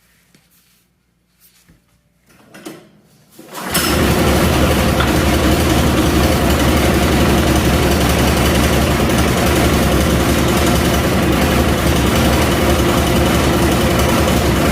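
Small gasoline engine on a Frontier OS27 portable sawmill starting up about four seconds in, after a few faint knocks and handling sounds, then running steadily.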